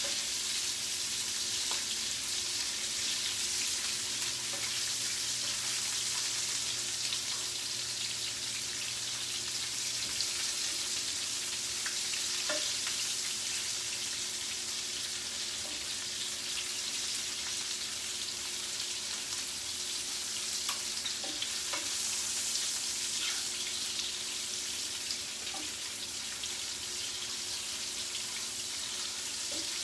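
Cherry tomatoes and lemon zest frying on high heat in bacon fat and butter in a large pan: a steady sizzle with scattered spits and pops. A spatula stirs and scrapes through the pan.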